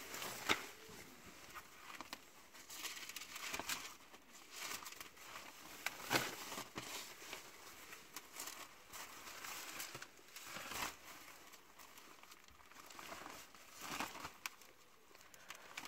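Large sheets of kite paper rustling and crinkling as they are lifted and flipped over one by one, with a sharper crackle each time a sheet is turned, several times.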